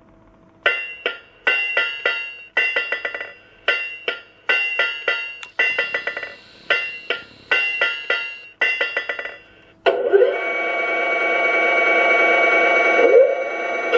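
Recorded blacksmith sound played by a model forge's electronic sound module: groups of quick ringing hammer blows on an anvil, about one group a second. About ten seconds in the blows stop and a steady hissing whine takes over.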